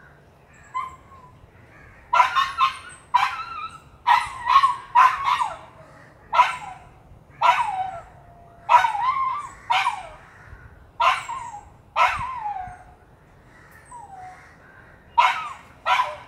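A dog barking repeatedly in short, sharp barks from about two seconds in, some sliding down in pitch like yelps.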